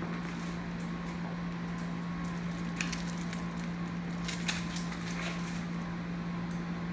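Steady low hum with a few faint ticks.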